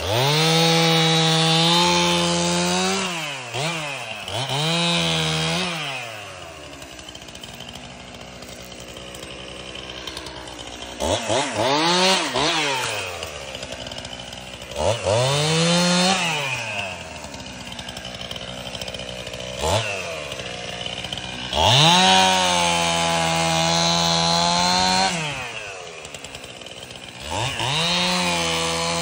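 Two-stroke chainsaw cutting fallen pine limbs. It is revved to full throttle in repeated bursts of a few seconds and drops back to idle between cuts, with a longer idle stretch about six seconds in.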